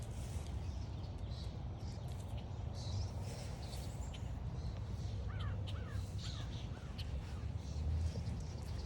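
American crow cawing three times in quick succession about five seconds in, with short high chirps from smaller birds scattered throughout over a steady low rumble.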